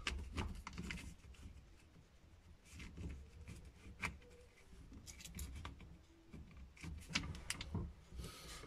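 Faint handling noises as a two-piece hose weight is fitted around a kitchen faucet's pull-out hose: rubbing and scraping of the parts, with a few light clicks scattered through.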